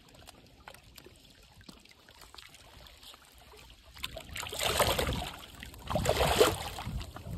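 Water splashing in two short bursts, about four and six seconds in, as a mirror carp is released back into the pond.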